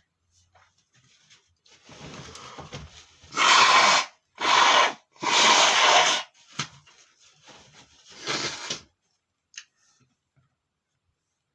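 A man's held-back sneezes: a ragged build-up of breath, then three loud, breathy bursts in quick succession, and a weaker one a couple of seconds later.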